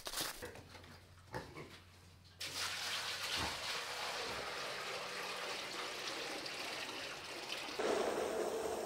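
Pigs grunting and shuffling about, with a dense, steady rustling noise starting abruptly about two seconds in.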